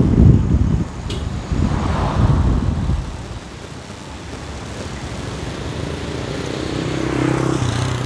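Road traffic heard from a moving vehicle. Wind buffets the microphone with a heavy low rumble for about the first three seconds, then gives way to a steadier traffic hum. Near the end a vehicle engine hums louder.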